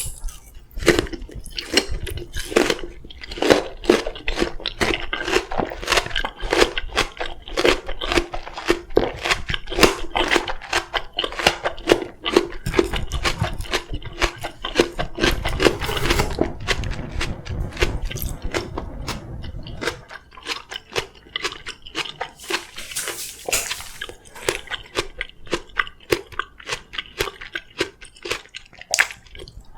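Close-miked chewing and biting of oriental melon (chamoe): a dense run of quick, wet clicks and smacks, with a low rumble for several seconds around the middle.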